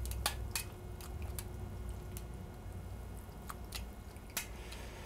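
Wet paper pulp being scooped with metal tongs into a stainless steel potato ricer, with a scattering of light clicks of metal on metal and soft wet squishing and dripping.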